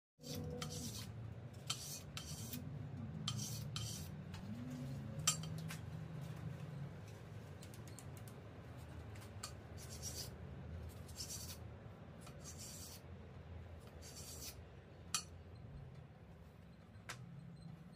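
Scattered light clinks and short scrapes of metal parts being handled, with a few sharper ticks, over a low steady hum.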